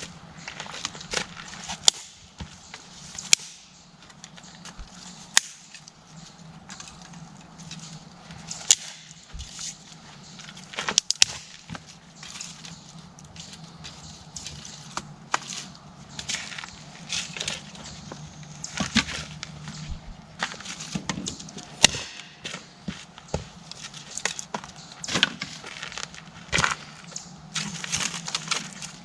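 Dry sticks and twigs snapping and clattering in irregular sharp cracks, over a faint steady low hum.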